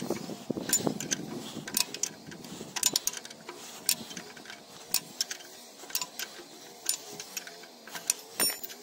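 Steel spanner working a rusty bolt on a plough's landside plate: a run of sharp, irregular metallic clicks, about one or two a second.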